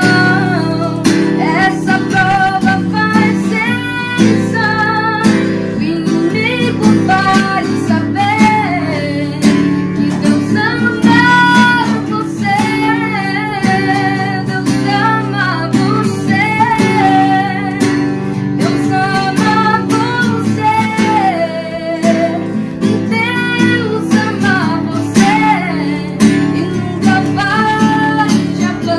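A woman singing a hymn, accompanying herself by strumming an acoustic guitar.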